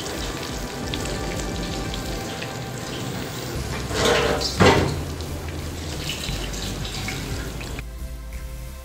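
Hot cooking oil sizzling in a wok, with oil dripping and running back from a wire skimmer of just-fried chicken nuggets held over it to drain. There are two brief louder swishes about four seconds in, and the sizzle thins near the end.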